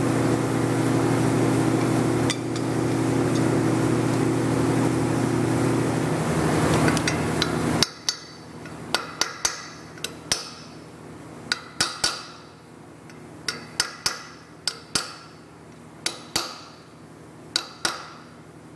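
A steady low machine drone for the first eight seconds, which stops abruptly. Then a hammer taps a copper punch against a bent steel motorcycle saddlebag mount resting on a copper bar: about fifteen sharp, ringing metal strikes, singly and in quick pairs and triplets.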